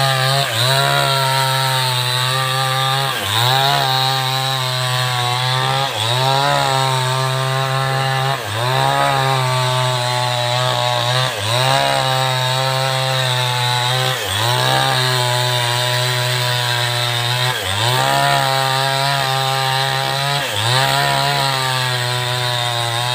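Two-stroke chainsaw running hard, cutting felled tree trunks into short lengths. Its pitch dips sharply and climbs back about every three seconds.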